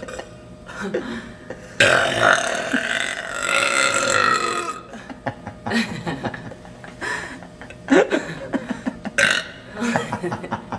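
A woman burping: one long, loud burp about two seconds in that lasts about three seconds, then several shorter burps.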